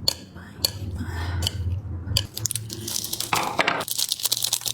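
Plastic instant-noodle packets being handled, with scattered sharp clicks and a dense crinkling from about three seconds in.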